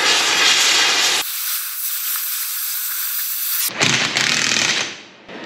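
Hot metalworking noise: a steady hissing, sizzling rush that changes character abruptly twice, once losing its low end, then dips near the end.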